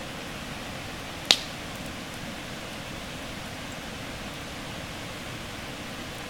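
Wood fire burning with a steady hiss, and one sharp, loud pop from the burning logs about a second in.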